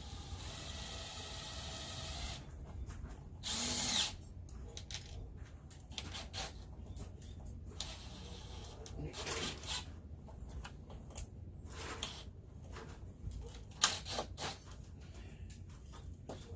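Cordless drill driving a screw: the motor runs for about two seconds, then a shorter, louder burst follows a second later. Scattered clicks and knocks follow.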